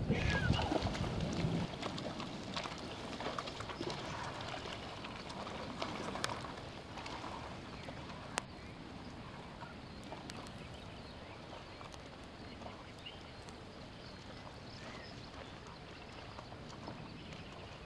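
Horses' hooves stepping and splashing in a shallow, stony river, with scattered knocks against the stones over a steady wash of water; busiest in the first few seconds, then quieter.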